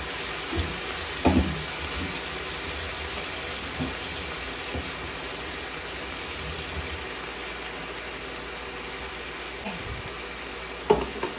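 Chicken pieces sizzling as they brown in a pan on an induction cooktop, a steady hiss. A couple of knocks from utensils or containers come about a second in and near the end.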